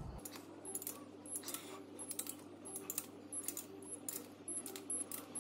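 Ratchet torque wrench clicking in quick irregular runs as the main-girdle nuts are tightened down, over a faint steady hum.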